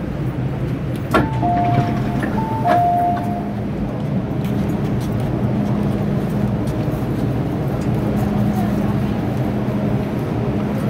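MTR M-Train door chime: a click, then a two-note falling chime played twice about a second in, as the doors are about to open at the platform. Under it, the steady hum of the standing train.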